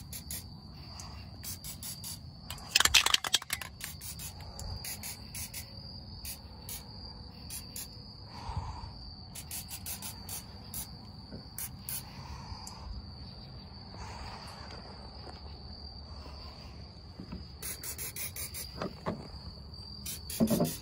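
Crickets chirping steadily in a continuous high trill. About three seconds in there is a short, loud spray hiss from an aerosol can of Fluid Film.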